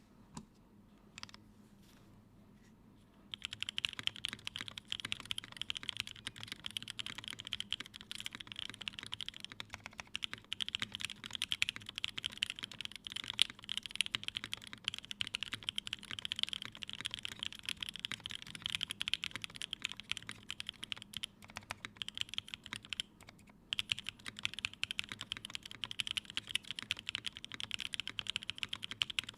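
Continuous fast typing on a Unikorn r2.1 mechanical keyboard with an aluminium plate, lubed and filmed Creamsicle switches, Cherry clip-in stabilisers and CRP keycaps. A few single keystrokes come first, then steady typing from about three seconds in, with a brief pause past the two-thirds mark.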